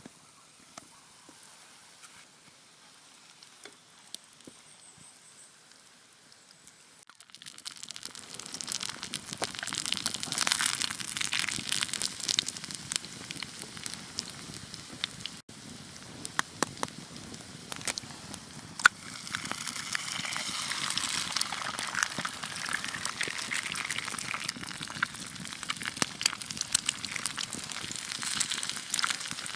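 Food frying in hot oil: a dense sizzle that starts suddenly about seven seconds in, full of spitting crackles, and swells again about twenty seconds in.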